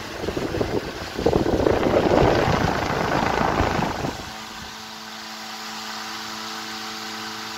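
Antique Century 16-inch electric desk fan running: for the first four seconds its airflow buffets the microphone with gusty wind noise. After that the steady hum of the motor is heard.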